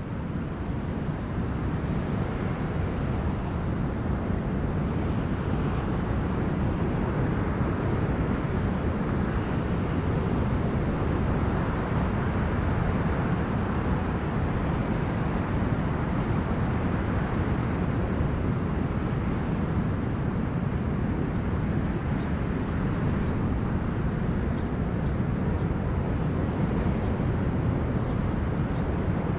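Strong storm wind buffeting the microphone over breaking sea surf: a steady, heavy noise that swells in over the first second or two and then holds.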